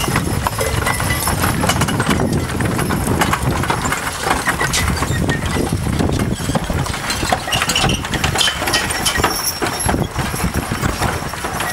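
Pairs of horses walking past pulling wooden covered wagons: steady hoofbeats with the knocks and rattles of harness and iron-rimmed wagon wheels.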